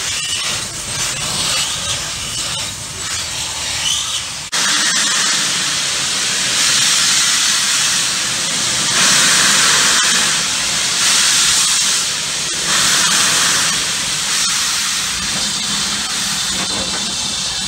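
Steam hissing hard from the open cylinder drain cocks of BR Standard Class 4MT tank locomotive 80080 as it moves off slowly, the hiss swelling and easing in surges every second or two. The sound jumps louder about four and a half seconds in.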